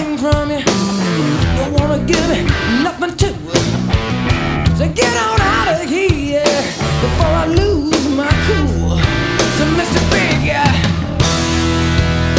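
Background rock music with a sung vocal line over guitar, bass and drums.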